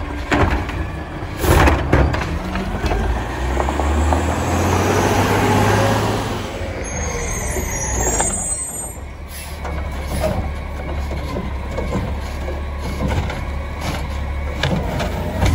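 CNG Mack LR garbage truck with a Heil Curotto-Can arm shaking a cart into its can, with a sharp bang about a second and a half in. The engine then revs up for a few seconds, an air brake hisses about seven seconds in, and the truck runs steadily with small clanks as its arm reaches for the next cart.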